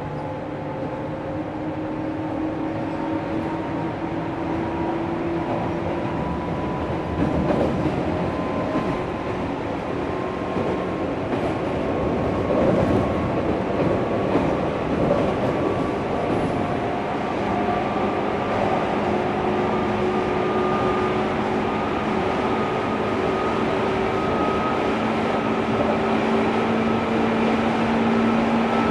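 Traction motors of a JR East 205-series electric train, MT61 motors with external cooling fans, running under the floor of the motor car. Their whine climbs slowly in pitch as the train gathers speed, over the rumble of the wheels, with louder rattling from the track about seven seconds in and again around twelve to fifteen seconds in.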